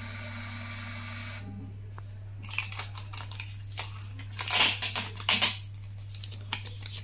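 Built-in thermal printer of a G-Matronix R30+ autorefractometer feeding out a readings slip with a steady whir that stops about a second and a half in. Then the paper slip is torn off at the printer outlet with several loud rustling rips around the middle.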